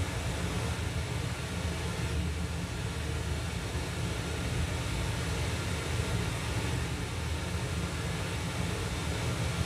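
Zebronics Juke Bar 9700 Dolby Atmos soundbar and subwoofer playing a Dolby Atmos test track: a steady, heavy-bass noise like a passing vehicle or aircraft, picked up by a microphone in the room.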